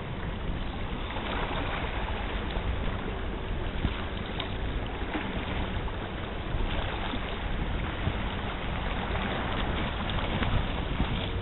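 Steady rumble and hiss of wind buffeting the microphone over the wash of the sea against the rocks.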